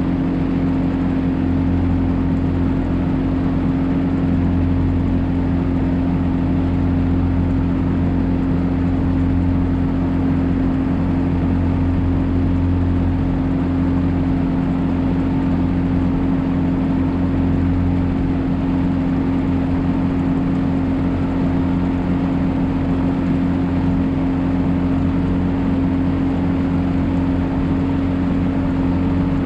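Gasoline outboard motor running steadily at cruising speed, pushing a small aluminium boat along, with an even hum that does not change. It is running on a spark plug wire repaired after a mouse chewed it off.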